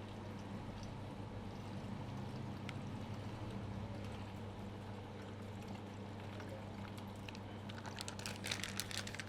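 Wet, liquid sounds of hands working milk through hair and scalp during a head massage, over a steady electrical hum. A quick run of sharp clicks comes about eight seconds in.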